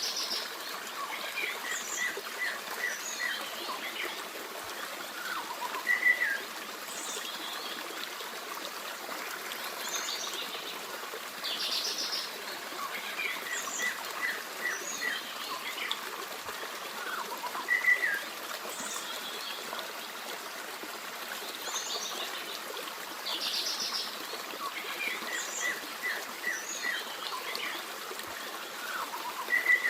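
Forest stream running steadily, with birds chirping and singing over it. The same run of calls comes round about every 12 seconds: quick trills, then a short loud chirp that is the loudest sound each time.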